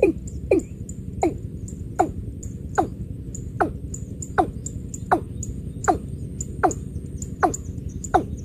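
Watercock calling: a long, even series of low notes, each sliding downward in pitch, about one every three-quarters of a second.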